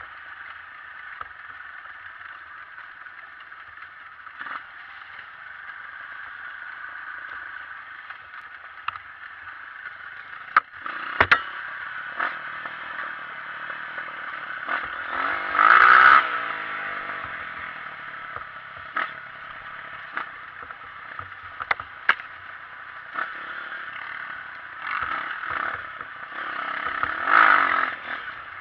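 Honda CRF230 dirt bike on a trail, its single-cylinder four-stroke engine running over a steady noisy bed and revving up about halfway through and again near the end. Sharp knocks and clatter from the bike over rough ground come in between.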